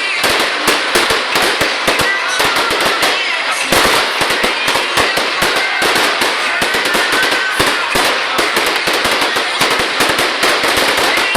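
Fireworks display going off in a dense barrage: rapid crackling with many sharp reports a second.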